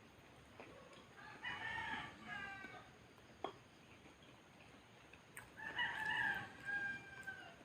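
A rooster crowing twice, each crow a long pitched call lasting over a second. A single short tap falls between the two crows.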